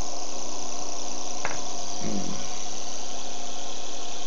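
Experimental three-phase Bedini-style pulse motor running, a steady electrical buzz with a high hiss over it, and a single short click about one and a half seconds in.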